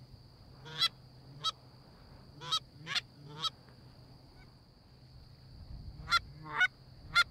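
Canada goose honking: short, sharp honks, five spread over the first few seconds, then three more in quick succession near the end.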